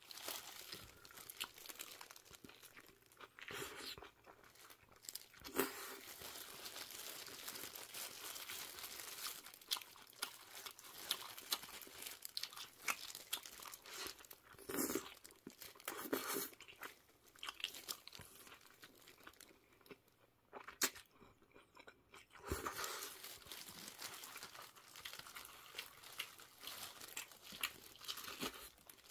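Close-miked chewing and biting of a burrito, with crunching and the crinkle of a plastic glove and paper wrapper, quieter for a moment about two-thirds of the way through.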